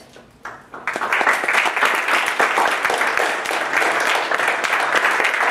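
Lecture-hall audience applauding: a few scattered claps, then about a second in the whole audience breaks into sustained clapping.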